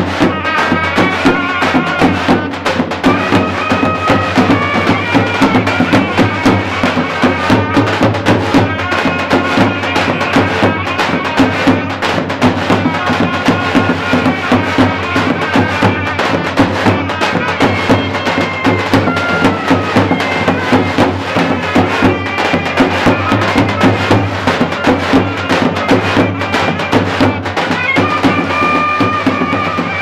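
A davul-zurna band playing a lively folk tune: two zurnas play the shrill melody together over the steady beats of a davul bass drum.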